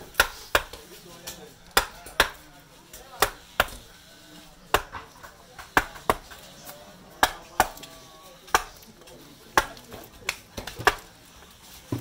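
Round wooden mallet striking a wood-carving gouge, the gouge cutting chips from a block of wood while roughing out a carving. Short, sharp knocks at an uneven pace, about one or two a second and often in quick pairs.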